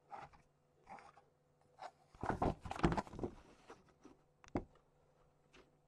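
Faint handling sounds of a plastic model carriage body being moved and set down on the workbench: scattered soft rustles, a denser bout of rubbing and scraping about two to three seconds in, and a single sharp click near the end.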